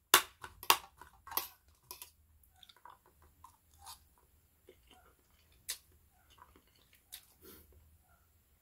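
Close-miked eating of fried instant noodles: wet chewing and mouth sounds as a forkful of noodles is sucked in. There is a run of sharp clicks in the first two seconds, then softer scattered clicks.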